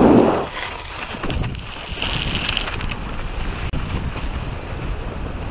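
Wind buffeting an action-camera microphone while skis scrape and hiss through snow in a hard carve, spraying snow. There is a loud gust at the start and a few sharp knocks along the way.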